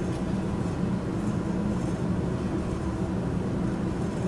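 Steady low hum with a rushing background noise from room machinery, unchanging throughout.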